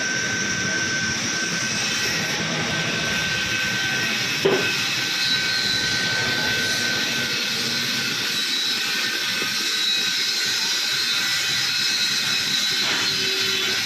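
Loud, steady hiss of a high-pressure jet with a steady machine whine over it at a service-centre wash or cleaning station. A single short knock comes about four and a half seconds in.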